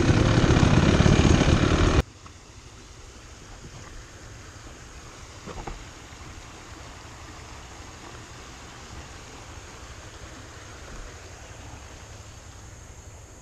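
Two-stroke dirt bike engine running under way on a helmet-mounted camera, cutting off abruptly about two seconds in. After that, only a faint steady low rumble remains.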